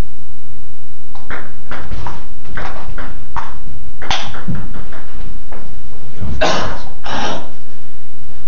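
Table tennis ball clicking off the bats and table during a rally: a string of sharp knocks at an uneven pace, with two louder, longer sounds near the end.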